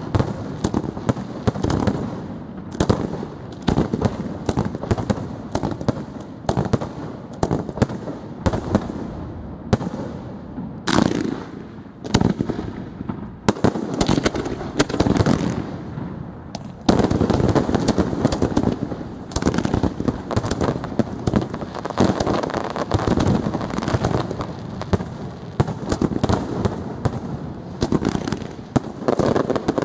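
Professional aerial fireworks display: shell bursts banging one after another in a dense, almost unbroken run. It gets louder and denser a little over halfway through.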